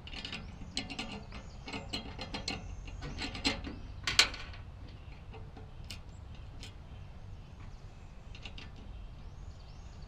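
Quick metallic clicks of a small hand tool tightening the nuts and bolts that fix brackets to the bases of a pair of air horns. The clicks are busiest in the first four seconds or so, then come only now and then.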